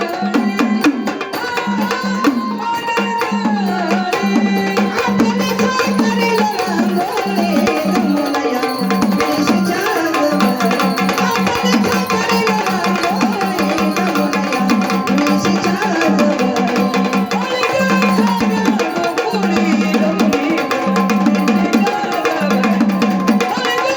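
Gondhal folk music: sambal drums beaten in fast, even strokes under a gliding electronic organ melody.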